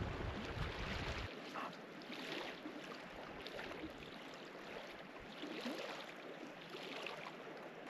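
Steady rushing outdoor noise, with low wind buffeting on the microphone that stops a little over a second in.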